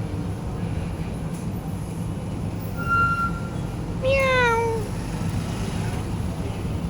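A cat meowing once, about four seconds in: a short call that falls in pitch. About a second before it comes a brief high steady tone, over a steady low rumble.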